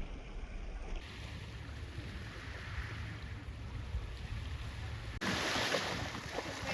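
Ocean surf washing in with wind buffeting the microphone, a steady rushing noise that changes abruptly twice at cuts between clips.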